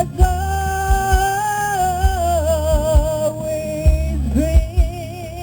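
A singer holding long sung notes with vibrato, the line stepping down in pitch about halfway through, over band accompaniment with a steady bass and regular drum hits.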